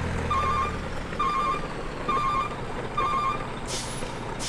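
Electronic ringtone-like beeping: four short, trilling double-tone beeps about once a second over a steady hiss, with two brief bursts of hiss near the end.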